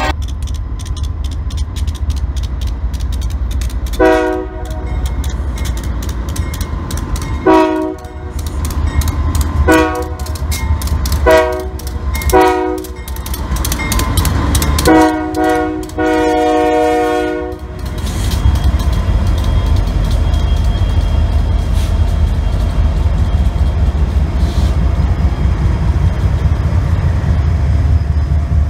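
Diesel locomotive air horn sounding a chord in seven blasts, the last two longer and nearly run together, over the steady low rumble of the train. After the last blast the rumble of the passing train carries on.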